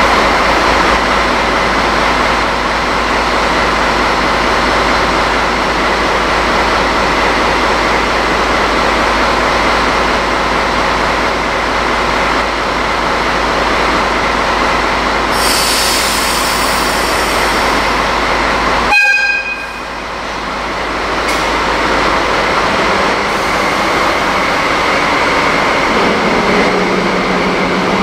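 DD16 diesel-hydraulic locomotive idling at a standstill, with a steady engine sound. Past the middle there is a high hiss for about three seconds. Shortly after, the deep hum cuts off abruptly and the sound dips briefly before the engine sound returns.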